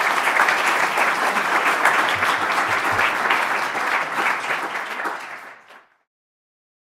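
Audience applauding, many hands clapping together, fading out about five to six seconds in.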